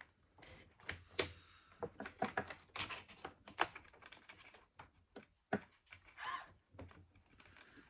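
Light, irregular clicks, taps and brief scrapes of small parts being handled as steering rods are connected to an RC truck's front steering linkage.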